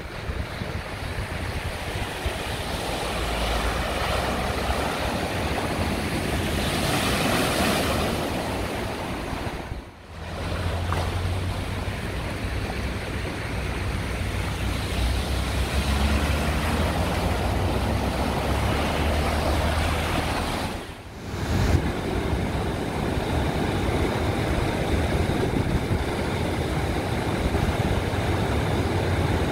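Storm floodwater running across a street, with wind rumbling on the microphone. The sound drops out briefly twice.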